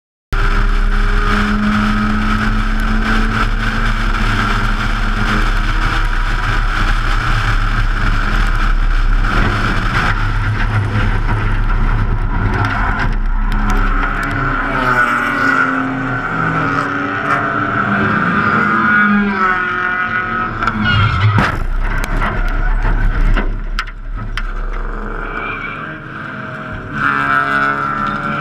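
In-car sound of a Mazda RX-7 race car's rotary engine running hard at speed. The engine note then drops and its pitch slides up and down as the car spins, and a single sharp crash about three-quarters of the way in marks the car being hit, after which the sound is quieter.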